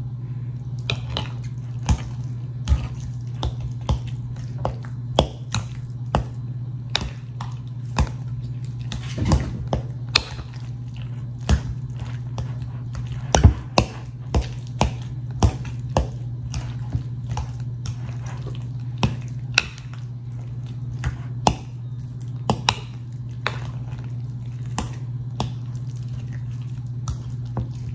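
Metal fork mashing boiled potatoes in a glass bowl: soft squishing with irregular clicks and taps of the fork against the glass, over a steady low hum.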